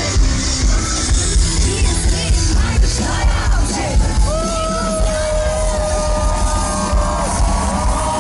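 Live band playing through a festival PA, recorded from within the crowd: a heavy pulsing beat with an overdriven bass, and a long held note that comes in about four seconds in.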